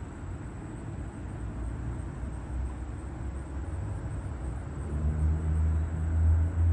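Low rumble of a train, growing louder about five seconds in, with a faint low hum coming in.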